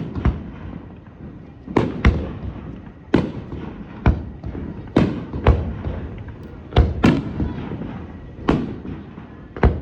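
Aerial firework shells bursting in quick succession: about ten sharp bangs at irregular intervals of roughly a second, each trailing off in a rumbling echo.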